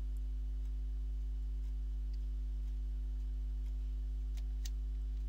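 Steady low electrical mains hum from the recording setup, with a few faint clicks: one about two seconds in and two more near the end.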